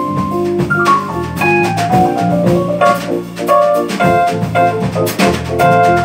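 A live jazz quartet playing: a stepping melody of sustained notes over keyboard, electric bass and drums.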